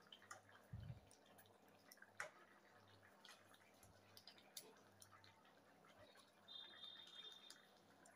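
Faint bubbling of curry simmering in a wok, with scattered small pops and clicks, a soft low thump about a second in, and a faint high tone near the end.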